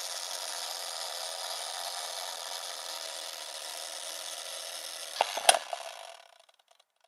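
Old-film crackle and hiss sound effect: a steady, grainy noise with no tune. A couple of sharp clicks come about five seconds in, the second the loudest, and then the noise fades out.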